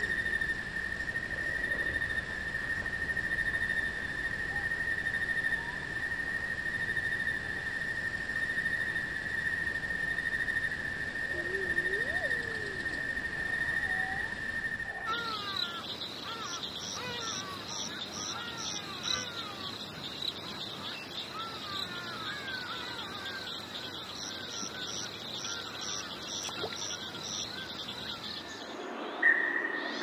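Rainforest ambience: a steady high insect drone with a few low bird notes. About halfway through it switches to a different, higher insect drone with a pulsing note above it and many short falling chirps.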